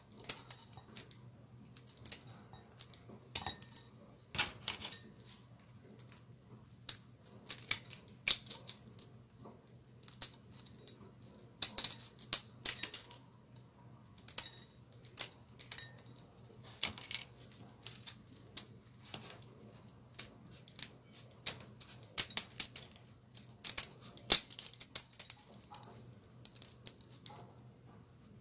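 Small scissors snipping dried red chillies lengthwise over a ceramic plate: an irregular run of crisp snips and light clicks, about one or two a second with short pauses, as strips drop onto the plate. A steady low hum runs underneath.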